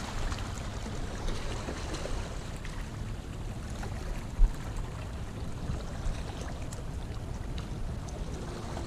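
Wind rumbling across the microphone over water lapping, with one low thump about four and a half seconds in.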